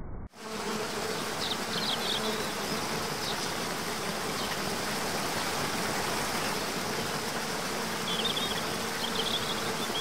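Steady rush of a waterfall pouring over rocks, with small birds chirping now and then and a faint steady buzz like insects underneath.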